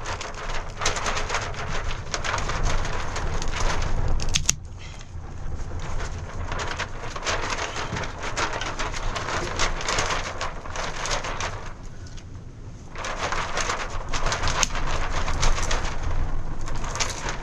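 Heavy rain falling hard, a dense crackling patter that swells and eases, dropping away briefly twice.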